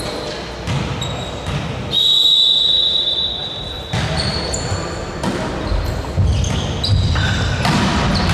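Indoor court game: low thuds of a ball and players' steps on the floor, with many short high shoe squeaks. About two seconds in, a referee's whistle sounds, held for about two seconds.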